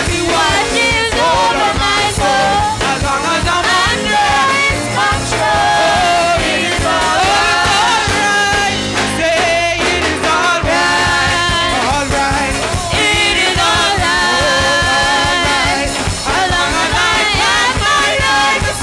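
Live gospel praise-and-worship music: a lead singer on a microphone sings over a band with a drum kit.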